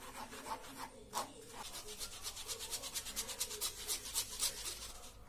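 Plastic measuring spoon scraping cocoa powder through a mesh sieve, sifting out lumps: rhythmic rubbing strokes that turn quicker and more regular about two seconds in.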